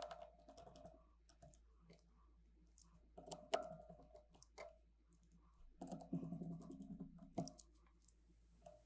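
Screwdriver driving the small T5 and T3 Torx screws that hold a MacBook Pro's cooling fans: faint clicks and scraping in three short spells, with a faint hum under the last two.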